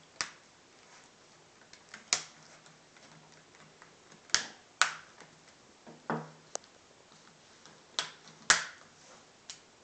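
Plastic screen bezel of an Acer Aspire One netbook being pressed back onto the lid, its clips snapping into place: a series of about nine sharp, irregularly spaced clicks.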